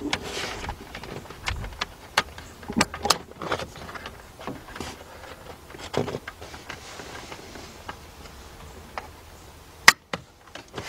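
Scattered light clicks, taps and rustling of hands working plastic hydraulic lines into their clips on a convertible-top mechanism, with one sharp click near the end.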